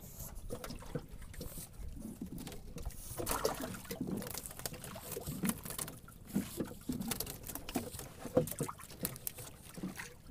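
Irregular light clicks and rattles of a wire-mesh fish trap being handled as wet fish are pulled out through it by hand, with a little water dripping.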